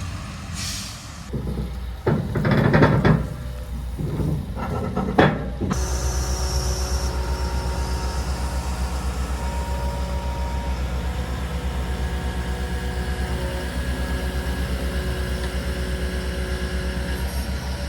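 A few loud knocks and rattles, then about six seconds in an excavator's diesel engine starts and settles into a steady, evenly pulsing idle.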